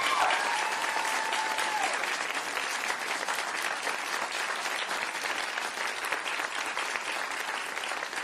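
Audience applauding steadily after an honour is announced. One long high-pitched call rises above the clapping in the first two seconds.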